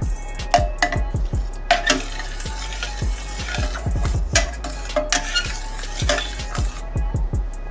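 A perforated metal spoon stirring a thin sauce in a stainless steel pot, clinking and scraping against the sides and bottom in quick, irregular knocks.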